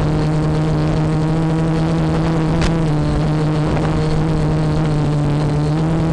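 FPV quadcopter's motors and propellers humming steadily in a low hover, with a brief sharp click about two and a half seconds in.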